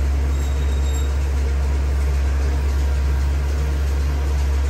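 Electric hair clipper running with a steady low hum as it cuts hair close to the microphone.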